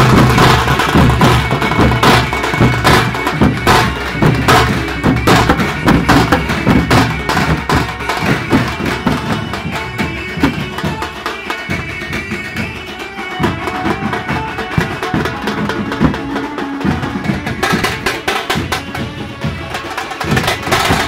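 A drum band of many large drums beaten with sticks in a fast, dense, driving rhythm, loudest in the first few seconds.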